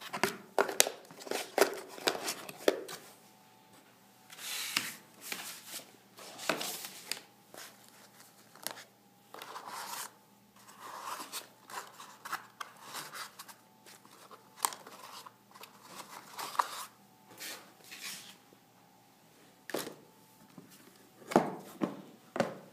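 Test leads and plastic accessories being handled in the foam inserts of a hard plastic case: irregular rustling, scraping and clicking. Near the end come two sharp knocks as the case lid is shut.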